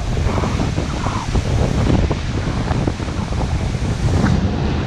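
Surf washing up a sandy beach, with wind buffeting the microphone as a steady low rumble.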